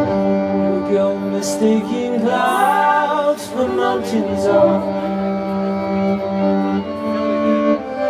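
Amplified live band playing an instrumental string passage: a violin melody over a long steady low note from cello and double bass, the violin line turning fast and ornamented about two to three seconds in.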